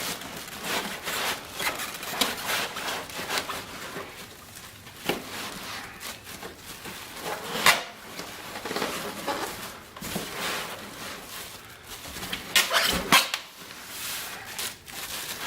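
Cardboard box and packing being handled as a boxed bench grinder is worked out of it: rustling and scraping with scattered knocks, a sharp one about halfway through and a cluster near the end.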